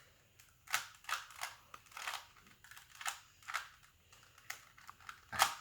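Rubik's Cube layers being twisted by hand: a string of irregular plastic clicks and short rasps, one or two a second, with a louder click near the end.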